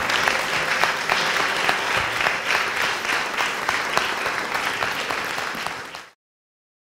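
Audience applauding, many people clapping at once, fading out near the end.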